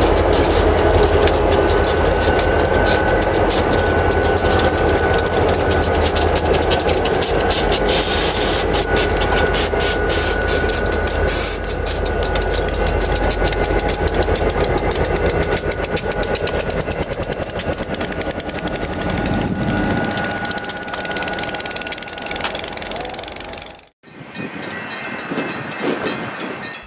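Ann Arbor Railroad diesel locomotives running past and moving away. Their engines rumble under a steady high whine, with rapid clicks of the wheels over the rail, and the sound fades as they recede. It cuts off sharply near the end, giving way to quieter street sound.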